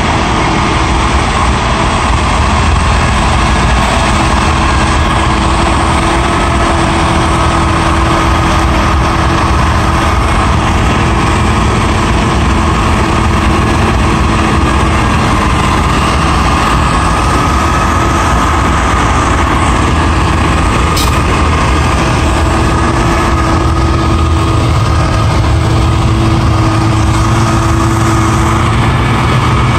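CAT 950M wheel loader's diesel engine running under steady load, driving a Larue snowblower attachment whose rotor chews into a snowbank and throws the snow out through the chute. The sound is a steady drone with a constant whine on top.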